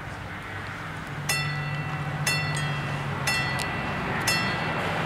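Level crossing warning bells start striking about a second in, about once a second, with the second bell's strikes sometimes falling just after the first. Underneath, a heavy lorry's engine runs and comes closer.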